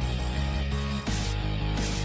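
Background music: a rock track with guitar.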